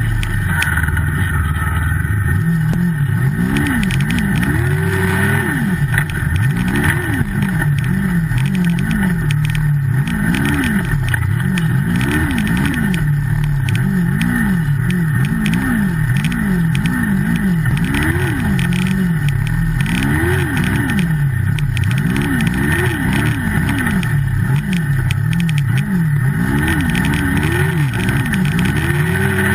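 Turbocharged Yamaha snowmobile engine revving up and down over and over while riding, its pitch rising and falling about once a second, sometimes in quicker runs of several revs.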